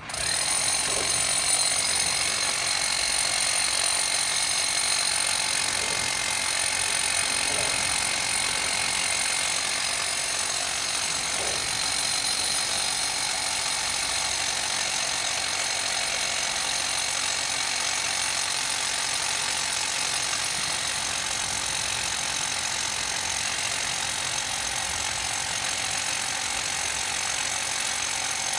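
Handheld power drill, a hammer drill, running continuously as it bores into concrete. It starts abruptly and then runs at a steady, loud, high-pitched pitch.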